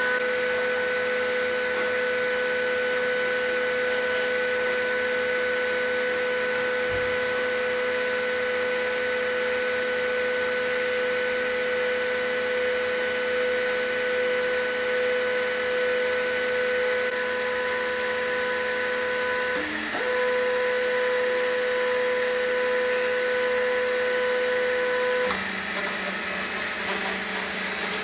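3D printer's stepper motors lowering the build plate: a steady high whine that breaks off with a click about twenty seconds in, resumes, then stops about 25 seconds in, giving way to a lower hum.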